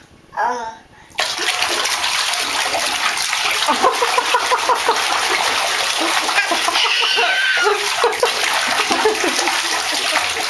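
Bathwater splashing as a toddler kicks his legs in a bathtub. The splashing starts about a second in and keeps up steadily, with a few short vocal sounds from the toddler.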